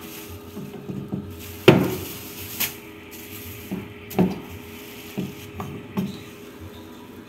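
Wooden tortilla press knocking as its lid and lever are brought down on masa wrapped in plastic: a run of separate wooden knocks, the loudest about a second and a half in.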